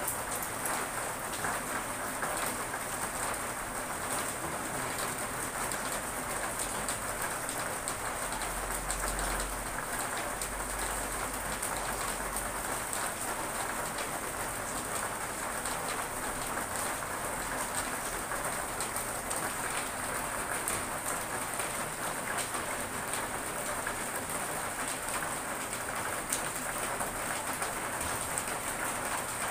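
Steady rain falling: a constant hiss dotted with the ticks of individual drops. A low rumble runs underneath from about eight to thirteen seconds in.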